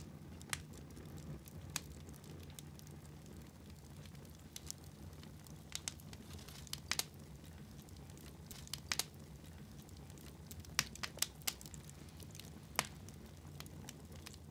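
Faint steady low hum with scattered, irregular sharp clicks and crackles, about a dozen in all, bunched most thickly from about six to thirteen seconds in.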